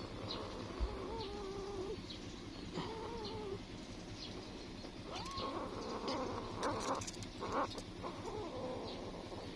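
Cats mewing at a nursing mother's teats: three drawn-out, wavering mews about a second or two apart, the third rising in pitch.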